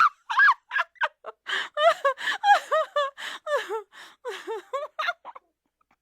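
A woman laughing in a quick run of short, pitched bursts with breathy intakes between them, growing quieter and trailing off about five seconds in.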